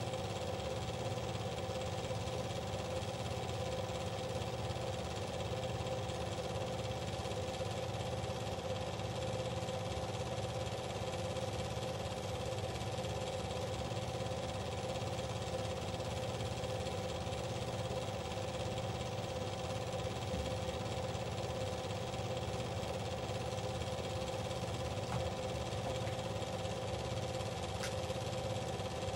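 Steady mechanical hum and whir of a film projector motor running, unchanged throughout.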